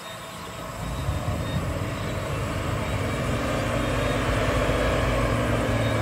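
Diesel engine of a front wheel loader working in sand, growing steadily louder over the first few seconds and then holding at a strong, even level.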